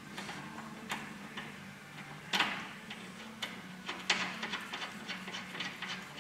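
Scattered small metallic clicks and clinks of nuts and bolts being handled and fitted by hand into a steel truck chassis rail, over a steady low hum.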